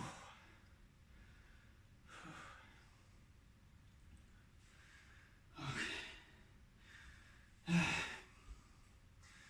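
A man breathing hard and sighing while resting between push-ups, with four heavy exhales a couple of seconds apart, the last two the loudest. He is out of breath from the exertion.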